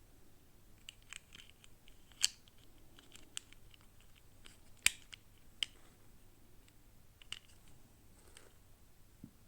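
Scattered small clicks and crinkles of plastic toy packaging being handled and opened, with two sharper snaps, one about two seconds in and one near the middle.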